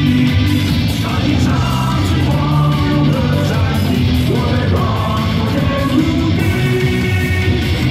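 Loud, upbeat rock-style cheer song played over the stadium's sound system for a cheerleader dance routine, with sung vocals and a steady heavy bass line.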